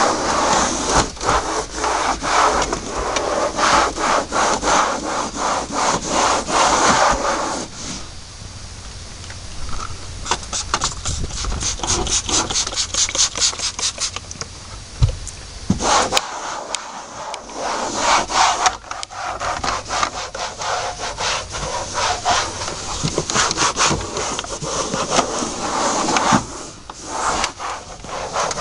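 A towel wiping a truck's plastic dashboard in rhythmic back-and-forth strokes, rubbing in a protectant dressing. The strokes come faster for a few seconds near the middle.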